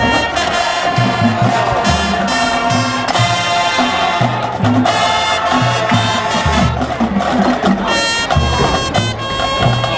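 Marching band playing: a brass section of trumpets and sousaphones holding bright sustained chords over a moving bass line, with drum hits.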